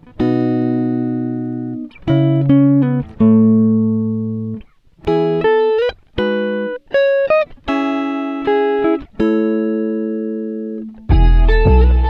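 Background music: guitar-like plucked chords and single notes, each ringing out and fading, with a fuller, louder passage with deep bass coming in near the end.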